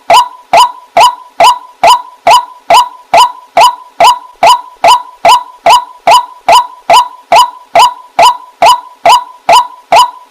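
White-breasted waterhen (burung wak-wak) calling. Short, loud calls repeat at an even pace of a little over two a second, each one the same.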